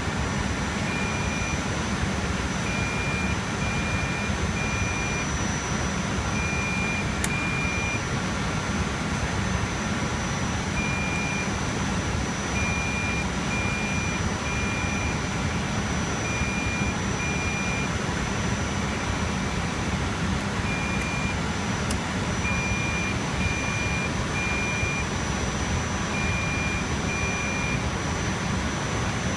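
Steady whir of rack-server cooling fans with a low hum and a thin high whine, and short high electronic beeps that repeat in small groups every few seconds.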